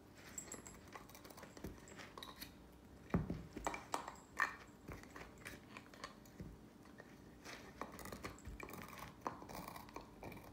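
A dog gnawing on an antler chew: irregular hard clicks and scrapes of teeth on antler, the loudest about three seconds and four and a half seconds in.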